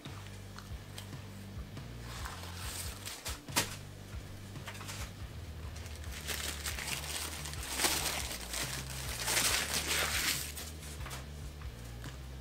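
Paper wrapper of a McDonald's breakfast burrito crinkling and tearing as it is peeled off, in irregular spurts that are thickest in the second half.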